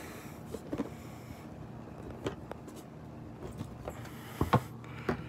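Cardboard stethoscope box being handled and its lid lifted open: scattered light taps and rustles, with a couple of sharper knocks near the end.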